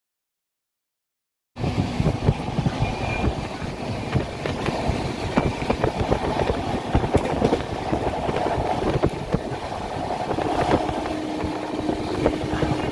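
Silence for about a second and a half, then the 22307 Howrah–Bikaner Superfast Express running at speed: a steady rumble and rattle of the passenger coach with many small knocks from the wheels and running gear.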